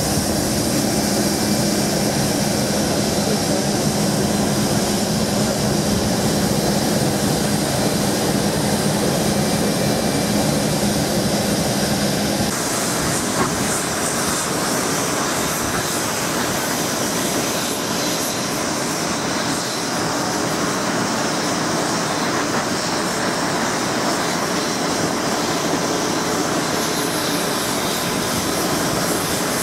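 Steady turbine rush and whine around a parked Boeing 737-500 during ground handling. A low hum runs under it for about the first twelve seconds and stops abruptly at a cut.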